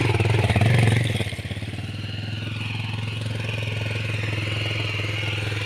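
Small motorcycle engine running steadily under way, a little louder for about the first second before settling to an even hum.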